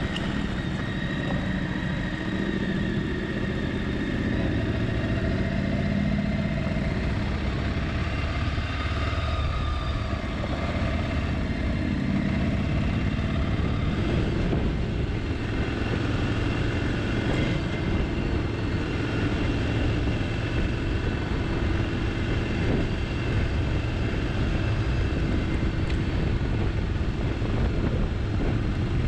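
Motorcycle engine running under way on a gravel trail, its note rising and falling with the throttle over a steady low rumble.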